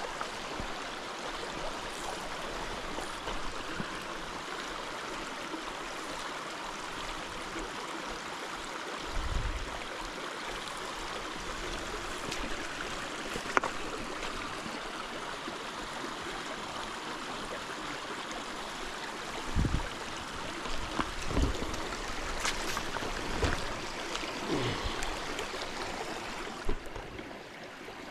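Small mountain brook trout stream running steadily, a constant rush of flowing water, with a few short low thumps in the second half and a couple of sharp clicks.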